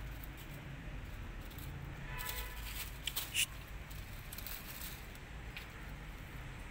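Dry fallen leaves rustling and crackling as kittens scramble through them and up a tree trunk, with a few sharp crackles about three seconds in. A distant vehicle horn sounds briefly about two seconds in over a low traffic rumble.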